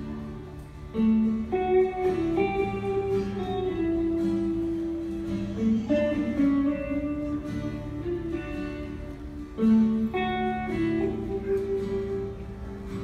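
Guitar playing a slow chordal passage, with chords struck about a second in, near the middle and again around ten seconds and left to ring.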